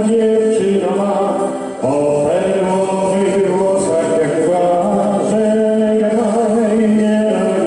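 A man singing into a handheld microphone through a PA, with instrumental accompaniment.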